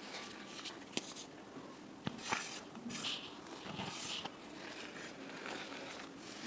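Hands digging into and squeezing a heap of crushed green gym chalk powder: soft crunching and rustling as the powder is pressed and poured, with a few sharp clicks and a louder crunch about two seconds in.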